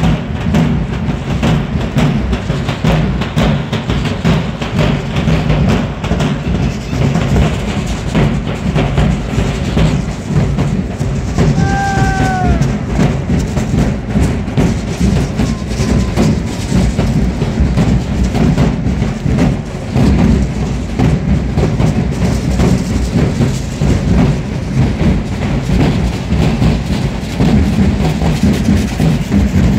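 Large bass drums beaten in a steady, driving dance rhythm for a Mexican danza troupe, under a constant clatter of strikes. A brief pitched note sounds about twelve seconds in.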